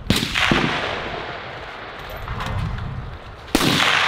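Two precision rifle shots about three and a half seconds apart, each a sharp blast with a long echoing tail, and a smaller crack about half a second after the first.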